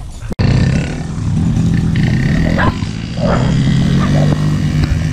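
Small 50cc kids' motorbike engine running steadily, coming in abruptly about half a second in, with a dog barking a few times over it.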